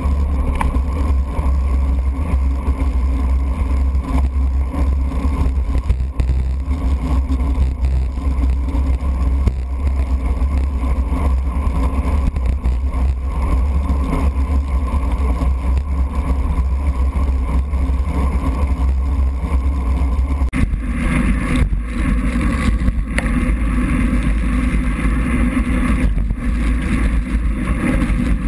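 Steady wind rumble and wet-road tyre noise picked up by a GoPro in its waterproof case, mounted on a road bike racing in the rain. About two-thirds of the way through the sound turns brighter and hissier.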